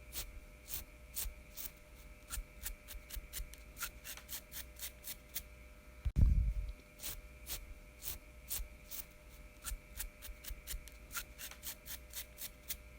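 Fingernails scratching through a man's beard: quick, crisp rasping strokes several times a second. There is a single loud low thump about six seconds in.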